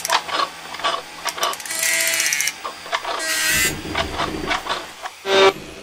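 Mechanical sound effects for an animated logo: a run of quick clicks and clanks with two short ratcheting whirs. A loud pitched musical stab comes in near the end.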